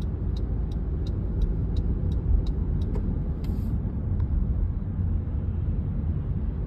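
Car cabin noise while driving: a steady low rumble of engine and road. Over it, a light, even ticking comes about three times a second and stops about three seconds in.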